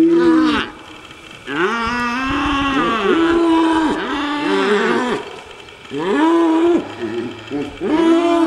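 Cattle mooing, several long calls overlapping one another, with short pauses about a second in and again around five seconds in.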